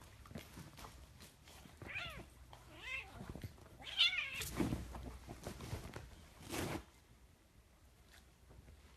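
A kitten mewing three times in short high calls while it tussles with a dog, with scuffling noises in between.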